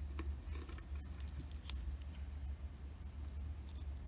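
A few faint, light clicks and taps from a CD player's front-panel circuit board being handled and turned over by hand, over a steady low hum.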